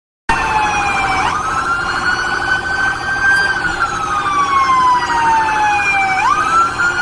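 Police siren wailing in long slow cycles: the tone falls slowly, then sweeps quickly back up, twice, over a rapid pulsing tone. It starts abruptly a moment in.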